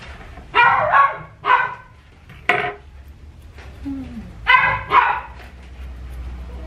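A dog barking: about six short, sharp barks, mostly in pairs.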